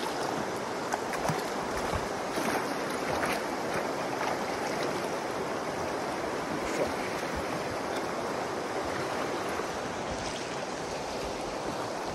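Shallow river current rushing steadily over rocks, with a few light splashes of wading in the water.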